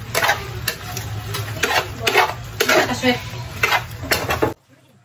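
A spatula scraping and knocking against a frying pan in repeated strokes, about two a second, as pork fat chunks are stirred in sauce. The sound cuts off abruptly near the end.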